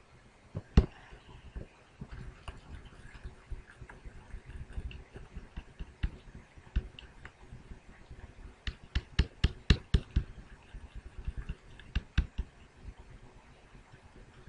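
Pen stylus tapping and clicking against a drawing surface in short irregular strokes, with a quick run of sharper taps in the second half.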